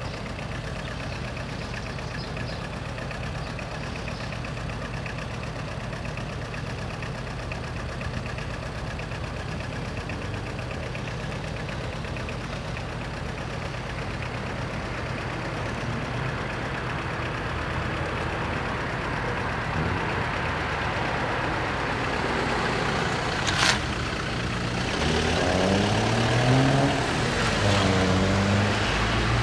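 Steady low engine hum from idling vehicles and an approaching diesel train, growing louder through the second half. About 24 seconds in there is a short sharp squeal, and near the end the engine pitch swings up and down.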